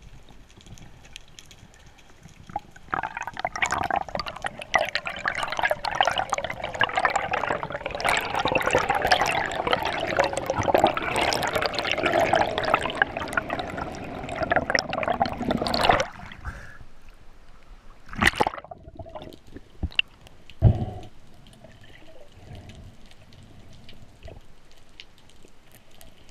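Water bubbling and gurgling with dense crackling for about thirteen seconds, then it cuts off suddenly. Two sharp knocks follow a few seconds apart.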